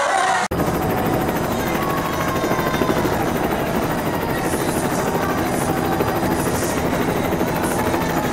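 Helicopter sound effect: a steady rotor chop and turbine rumble. It drops out for a moment about half a second in, then runs on evenly.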